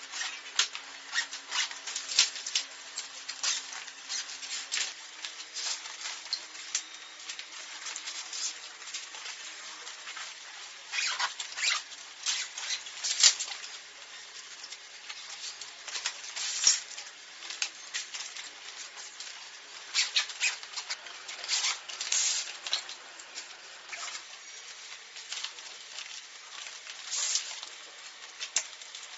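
Hands handling a nylon tactical backpack and the items being packed into it: irregular fabric rustles with scattered clicks and light knocks.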